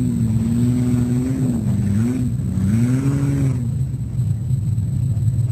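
Off-road 4x4 engine revving up and down, twice rising and falling in pitch before settling about three and a half seconds in, over a steady low engine drone.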